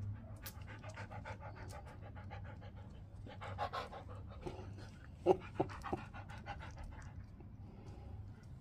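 A husky panting quickly and steadily at close range. Three short, sharper sounds break in a little past halfway.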